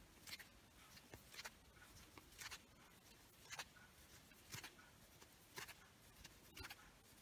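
Faint soft scratching and rustling of a crochet hook drawing yarn through, about once a second, one stroke for each single crochet stitch.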